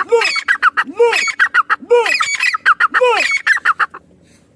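Female francolin (teetar) calling: a rapid, repeated phrase of harsh, squawky notes, each opening with a rising-and-falling note, about once a second, four times. The calls stop shortly before the end.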